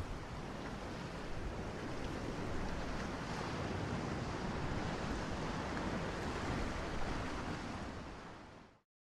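Sea water washing and splashing around the camera at the surface, with wind on the microphone: a steady rush that fades out near the end.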